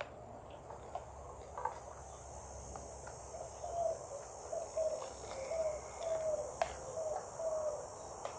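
Outdoor ambience: a steady high insect buzz like crickets, with a bird calling a run of short, slightly falling notes in the second half, and a few soft clicks.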